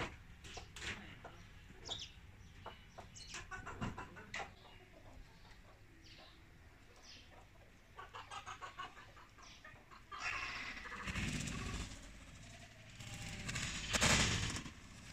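Chickens clucking in short calls, with a quick run of clucks a little past the middle. Then comes noisy scuffling, and near the end a loud burst of wing flapping as a hen and a peacock fly at each other.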